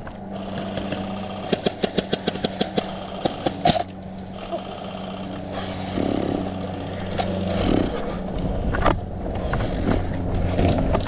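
A rapid string of sharp airsoft gun shots, about five or six a second, starting about a second and a half in and lasting about two seconds, followed by a few scattered single shots, over a steady low hum.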